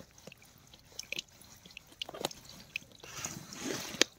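A few light clicks and taps of a part being fitted onto the motorcycle by hand, with a short rustle about three seconds in.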